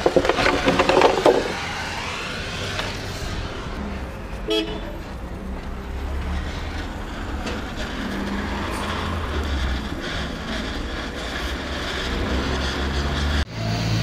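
Vehicle engines running with road traffic, with a short car horn toot about four and a half seconds in.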